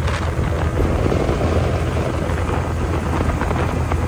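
Tour boat's engine running with a steady low drone, under a haze of wind and water noise.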